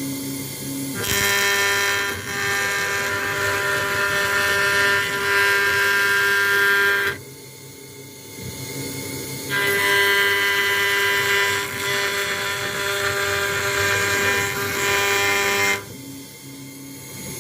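CNC router spindle running and cutting into an acrylic sheet: a steady high whine with a louder rasping cut over it. The cutting noise drops away for about two seconds around seven seconds in and again near the end, leaving the quieter whine.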